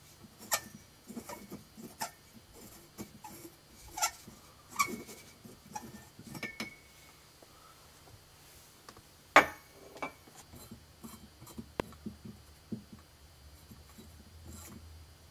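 Light bulb being twisted in a ceiling fixture's socket by a cloth-covered hand, giving scattered quiet clicks, squeaks and rubs, a few with a short thin ring. A single sharp click about nine seconds in is the loudest sound.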